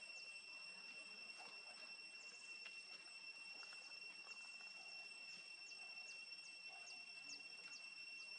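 Faint, steady high-pitched insect drone, like crickets, holding two high tones without a break. From about the middle, a run of short, high falling chirps comes in at about three a second.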